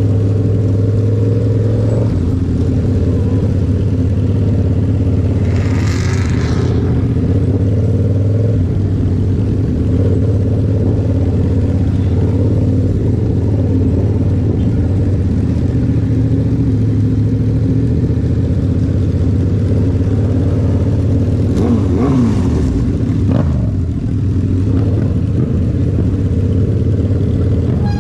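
Yamaha MT-07 parallel-twin engine breathing through a Toce aftermarket exhaust, running at a steady, even pitch. Two brief whooshes cut in, about six seconds in and again around twenty-two seconds.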